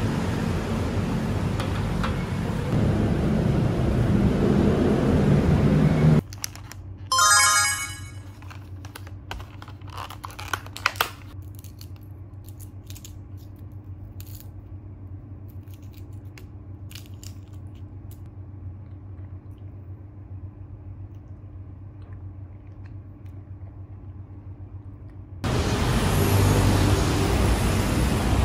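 Background music, with loud noisy ambience for the first six seconds and again near the end, and a brief bright ringing sound about seven seconds in.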